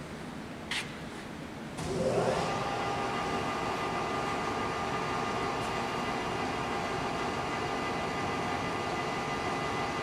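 Poreba TR135 lathe starting up: a short click, then about two seconds in the drive spins up with a rising whine and settles into a steady running hum with a high gear whine.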